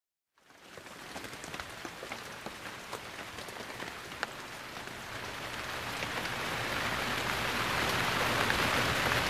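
Rain falling, fading in from silence and swelling steadily louder, with scattered sharper drop ticks.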